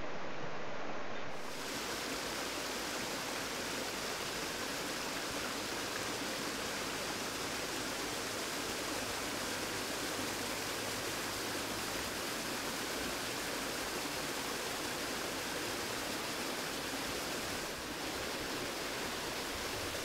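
Steady rushing splash of a small mountain waterfall spilling over rocks into a shallow stream. About a second in the sound turns brighter and fuller.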